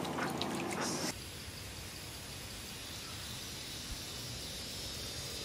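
About a second in, boat noise and voices cut away to a steady evening insect chorus: thin, high, even trilling over a faint hiss.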